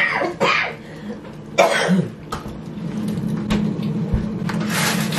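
A person coughing, three short bursts in the first two seconds, followed by a steady low hum with a hiss.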